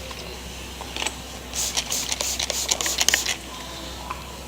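Hand scraping at old glue on a plastic bumper cover: a quick run of short scratchy scrapes and clicks, from about a second and a half in to just past three seconds, over a low steady hum.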